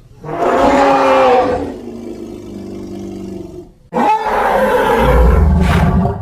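Indian rhinoceros calls: two long, loud pitched calls. The first lasts about three seconds and settles into a lower, drawn-out tone. The second starts about four seconds in.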